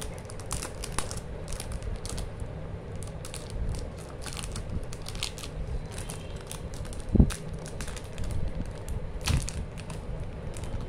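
Plastic shrink-wrap crinkling and crackling in irregular bursts as fingers pick at it and peel it off a cardboard chocolate gift box. There is one dull thump a little past halfway.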